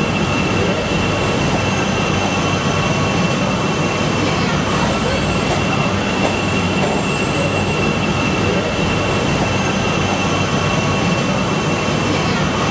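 CTA "L" rapid-transit train noise, steady and continuous, with a thin constant high-pitched whine running through it.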